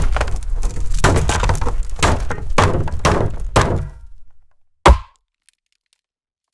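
Axe sound effect: a run of repeated heavy axe blows with cracking and splintering, dying away about four seconds in, followed by a single sharp axe thunk about five seconds in.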